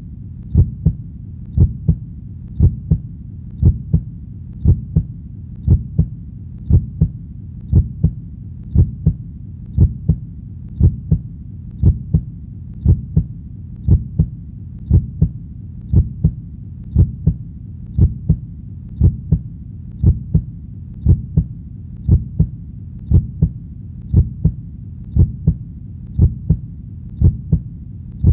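Heartbeat sounding in steady double beats (lub-dub) about once a second, over a constant low hum.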